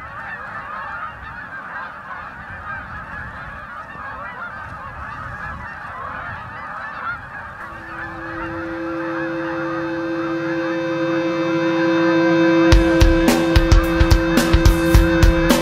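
A large flock of geese honking, many calls overlapping. About eight seconds in, music fades in with a held chord, and near the end drums and guitar come in loudly over it.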